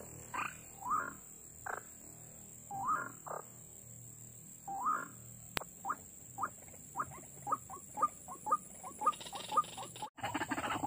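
White-breasted waterhen calling: short upward-sliding notes, a few spaced apart at first, then a run of quick repeated notes from about halfway that speeds up toward the end.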